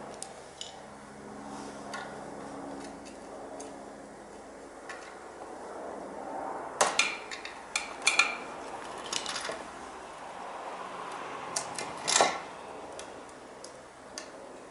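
Metal hand tools and parts clinking and clattering in short sharp knocks, loudest in a cluster about halfway through and again near the end.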